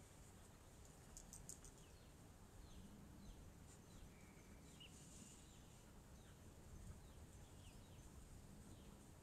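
Near silence: a faint background hum with many short, faint, high chirps, each falling in pitch, scattered throughout, and a few faint high clicks about a second in.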